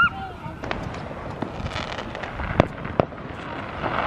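Fireworks going off around the neighbourhood: a series of sharp bangs, the loudest two about two and a half and three seconds in, over a steady crackling hiss.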